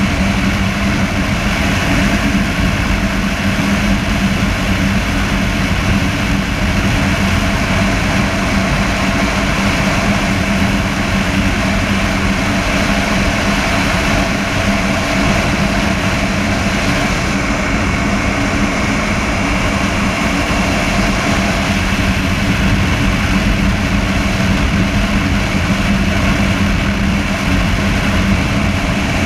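Honda motorcycle engine running at a steady highway cruise, a constant drone without revving or gear changes, under heavy wind rush over a chest-mounted camera's microphone.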